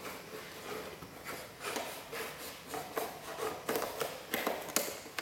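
Action-figure packaging being handled and torn open by hand: irregular plastic crinkling and rustling with a few sharper crackles.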